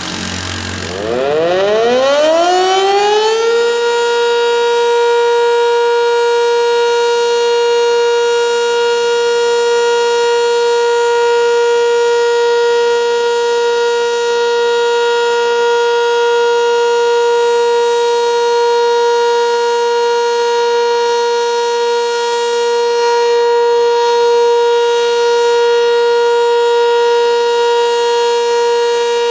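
Sentry 10V electromechanical tornado siren winding up from about a second in, its pitch rising for a couple of seconds, then holding a loud steady tone: the steady Alert signal of a siren test.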